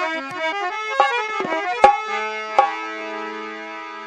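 Harmonium playing a short stepping melodic phrase, accompanied by three hand-drum strokes, then settling into a held chord over a low drone in the second half.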